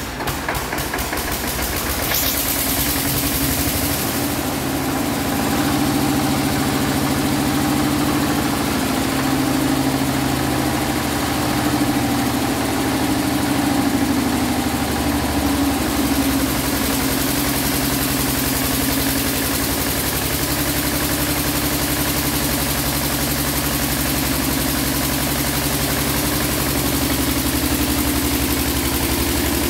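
Single-cylinder diesel engine of a 7.5 kVA welding generator set catching as it is hand-cranked, then running steadily. In the later part a stick-welding arc crackles on top while the generator powers the welder.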